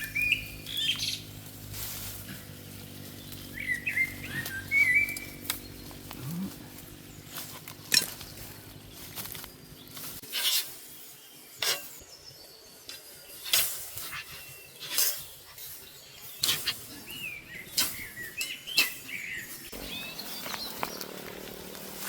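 Irregular sharp clicks and clattering knocks, like things being handled, with birds chirping now and then. A low steady hum runs under the first half and stops about halfway through.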